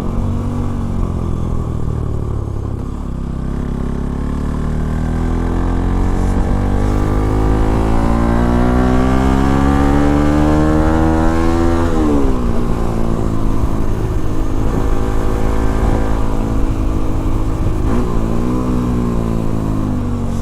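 Modified Bajaj Pulsar NS200's single-cylinder engine under way. The revs climb steadily for several seconds and drop sharply about twelve seconds in, then the engine runs steadily with a short rev near the end.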